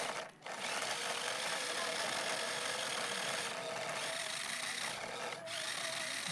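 Remote-control toy car's small electric motor and plastic gears whirring steadily, cutting out briefly twice.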